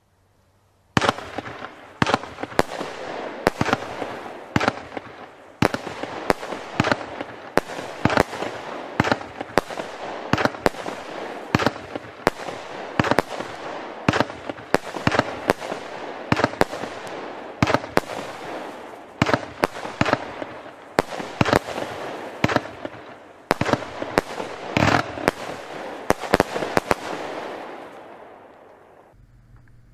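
Weco Toxic 25-shot consumer fireworks cake firing its shots in a rapid series. Sharp bangs come roughly one or two a second from about a second in, with a steady rushing noise between them that fades away near the end.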